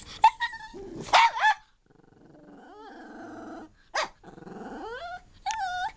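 Miniature fox terrier 'talking': a string of short yips and whiny calls, a longer, lower drawn-out vocalisation in the middle, then rising-pitched calls near the end. It is the dog vocalising to demand food.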